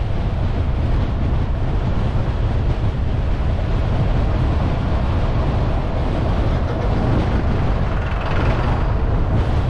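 Wind buffeting a car-mounted camera's microphone, with steady road and tyre noise from the moving car. Near the end a large delivery lorry passes the other way, adding a brief swell of noise.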